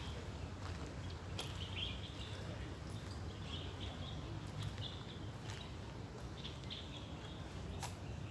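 Small birds chirping in short, scattered calls, over a steady low rumble, with a few sharp clicks.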